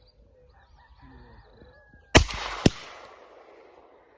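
Two shotgun shots about half a second apart, about two seconds in, each followed by a long fading echo. Faint bird calls come before them.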